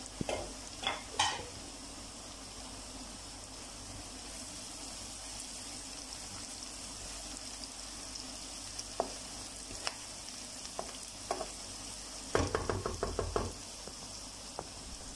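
Onion and garlic frying in hot oil in a non-stick kadhai, a steady sizzle, with a utensil stirring and knocking against the pan: a few knocks in the first second or so, scattered single taps, and a quick run of taps about twelve seconds in.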